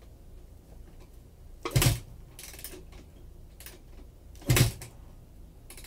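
Two kicks on the kickstarter of a 2004 Honda CRF250R, about three seconds apart, each a short burst as the four-stroke single turns over without firing because the fuel is still turned off.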